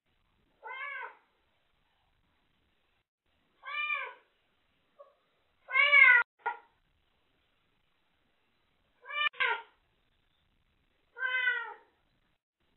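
Young ginger kitten meowing five times at intervals of two to three seconds, each call rising and falling in pitch, the loudest near the middle. These are the crying calls of a kitten newly taken in from the yard and still settling into indoor life.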